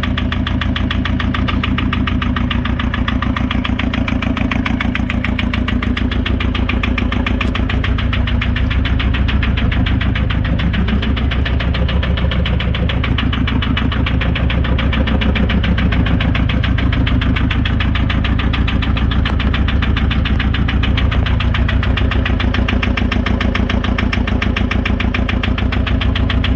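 VW Touran's 2.0 TDI (BKD) four-cylinder diesel engine running at a steady speed with a fast, even knocking. The owner cannot identify the knock and tags injectors as a suspect.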